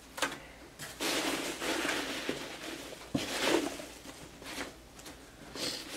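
Rustling of foam packing peanuts and packaging as a hand rummages through a cardboard box, with a light knock about three seconds in.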